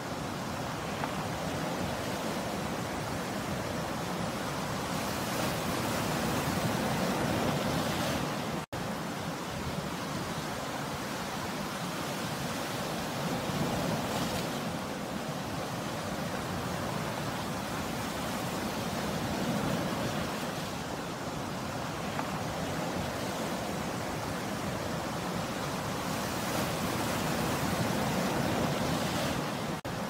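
Sea surf breaking and washing onto the shore, a continuous rush that swells and ebbs every several seconds. The sound cuts out for an instant about a third of the way through.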